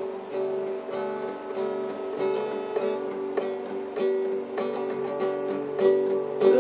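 Steel-string acoustic guitar playing chords in an instrumental passage between sung verses, struck in a steady rhythm a little more than every half second.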